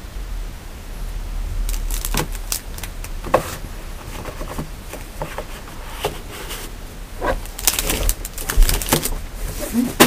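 Handling noise: a run of irregular clicks, taps and light rustles as hands move and set down small objects on a table, over a low rumble from the camera being handled. The clicks are busiest a couple of seconds before the end.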